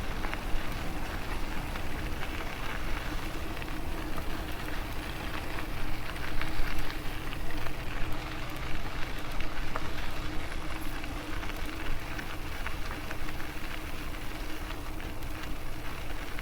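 Riding noise from an e-bike on a paved trail: wind rushing over the microphone and tyres rolling, with a faint steady hum and scattered small ticks.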